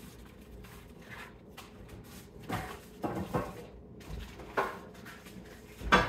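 Packaged food being handled and set onto the shelves of an open freezer: a few light knocks and rustles, the loudest just before the end.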